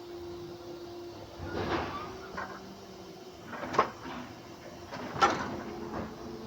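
Brick factory machinery working: a steady hum broken by irregular knocks, and two sharp bangs about a second and a half apart in the second half.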